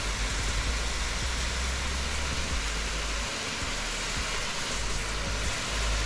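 Steady rushing roar of a waterfall close by, heavy water falling hard, with a low rumble underneath that drops out briefly about halfway.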